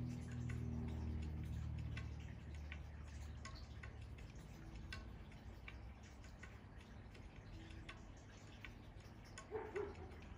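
Faint, irregular ticking clicks, about one or two a second, over a low hum that fades away in the first couple of seconds. A short, slightly louder sound comes near the end.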